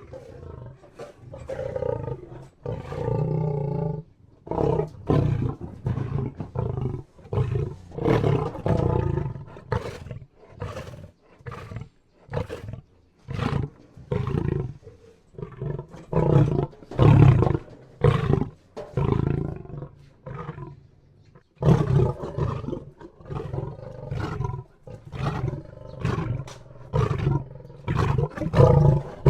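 Lion roaring: a long run of short, deep roars, roughly one a second, with a brief pause about two-thirds of the way through before the roars resume.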